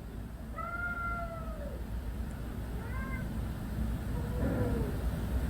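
Street cat meowing in long calls: a drawn-out call that drops in pitch at its end about a second in, a short call around three seconds, and a fainter, lower call near the end.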